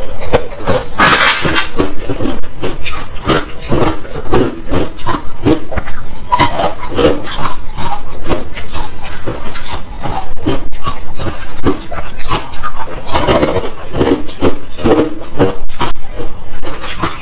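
Close-miked crunching and chewing of ice: a thin sheet of frozen matcha ice bitten and cracked near the start, then matcha ice cubes chewed. Dense, irregular crackles and snaps, heaviest about a second in and again about three-quarters of the way through.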